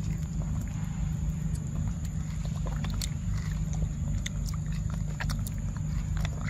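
A macaque chewing soft ripe fruit close up: many short wet clicks and lip-smacks, over a steady low rumble.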